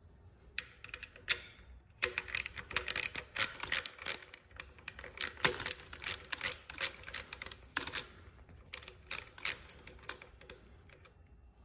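Hand socket ratchet clicking in quick, uneven runs while the ignition coil's mounting bolts are backed out. A few clicks come first, then a long run of rapid clicking that stops shortly before the end.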